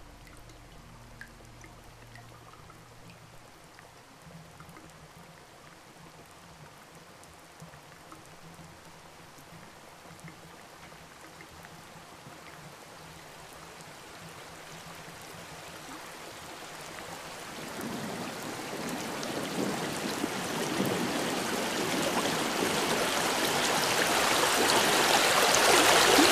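Rushing water-like noise with a few faint drips near the start, growing steadily louder through the second half and cutting off suddenly at the end.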